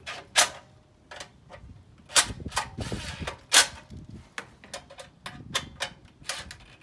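Sharp clicks and knocks of a cordless driver and its bit against the bolts and metal recoil housing of a Predator 212 engine as the recoil-starter bolts are tightened, about eight separate clicks with the loudest a couple of seconds and three and a half seconds in.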